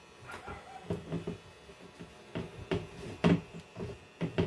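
Irregular knocks and clicks of a clothes cabinet's parts being handled and fitted during assembly, the loudest knock about three-quarters of the way through.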